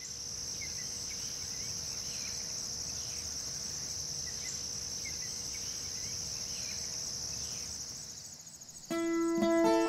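A chorus of crickets, a steady fast-pulsing high chirring that fades out near the end. Just before the end an acoustic guitar begins playing.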